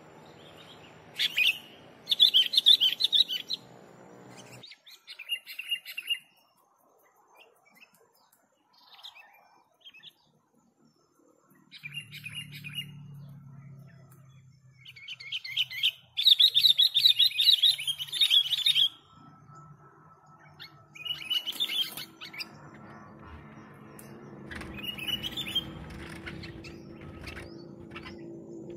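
Sooty-headed bulbuls singing: short bursts of quick, chattering phrases a few seconds apart, the loudest about two seconds in and again around the middle.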